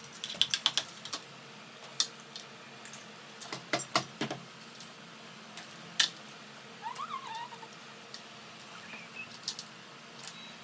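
Tableware clicking and clinking during a meal: a run of sharp clicks at the start, a cluster about 4 seconds in, and single clicks in between. A faint short squeak comes about 7 seconds in.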